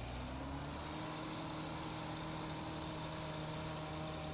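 CLAAS Crop Tiger combine harvester running steadily while harvesting maize, its engine note rising slightly in the first second and then holding level.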